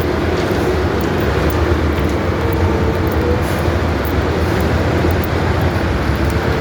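Asphalt milling machine running loudly and steadily, its engine holding a low note while its cutting drum grinds up the road surface.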